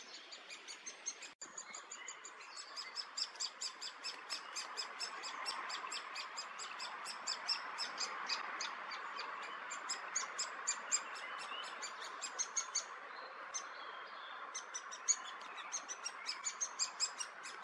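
Great spotted woodpeckers calling: a rapid, continuous series of short, sharp, high notes, about four a second, with a brief pause a little past the middle. This is typical of the young begging at feeding time.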